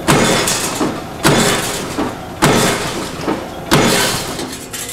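Power press punching round frying-pan blanks out of black steel sheet: four heavy strokes about one every 1.2 seconds, each a sharp bang that dies away, with lighter knocks of the sheet in between.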